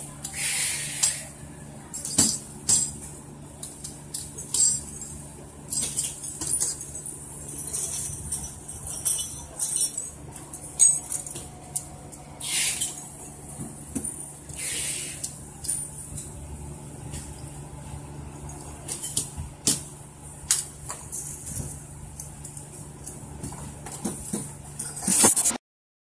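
Brass deadbolt lock parts clinking and jingling as they are handled and set down, with frequent sharp metal clicks over a steady low factory hum. The sound stops abruptly near the end.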